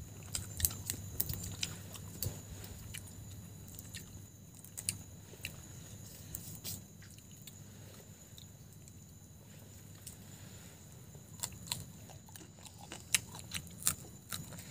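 Grilled shrimp being peeled and eaten: scattered crisp crackles of shell, with chewing and crunching, thickest in the first couple of seconds and again near the end as a shrimp is bitten.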